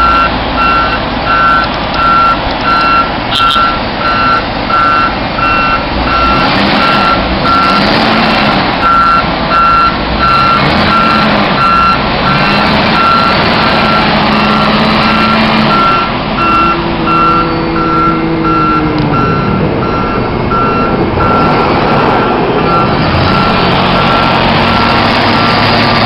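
Reversing alarm of a heavy vehicle, most likely a snow-clearing truck, beeping steadily about twice a second over its running engine. The beeping fades out a few seconds before the end.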